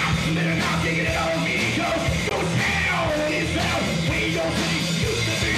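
Live rock band playing at full volume: distorted electric guitars, bass guitar and drums, with shouted vocals.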